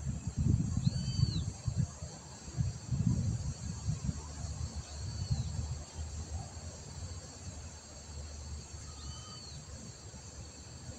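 Steady chorus of insects, crickets by their even shrill trill, with a short high arched chirp three times about four seconds apart. Under it is an uneven low rumble, heaviest in the first few seconds.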